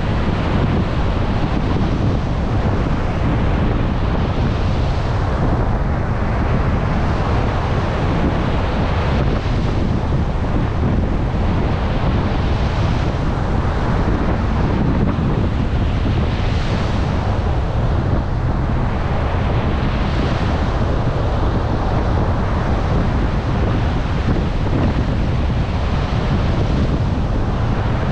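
Heavy surf breaking on a beach in strong wind, with wind buffeting the microphone as a constant low rumble. The hiss of the waves swells and fades every few seconds.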